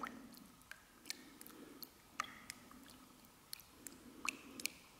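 Near-quiet room with a faint low hum, broken by a dozen or so small, faint clicks and ticks at irregular intervals.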